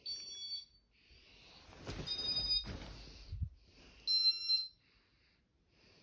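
Three short electronic beeps from a Casablanca ceiling fan's control, each about half a second long and about two seconds apart. Rustling handling noise comes between the first two.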